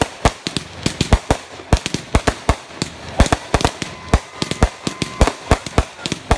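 Brothers High Falutin 500-gram firework cakes firing in a finale: a rapid, uneven run of sharp bangs, about four or five a second, as shells burst overhead.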